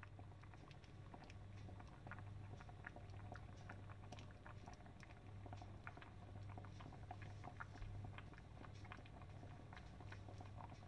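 Large pot of keşkek, wheat and chicken thighs in water, simmering on a gas stove: faint, irregular bubbling pops over a low steady hum.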